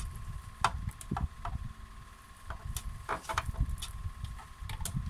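Strips of fabric being braided by hand on a tabletop: light rustling and handling noise with scattered small clicks and knocks.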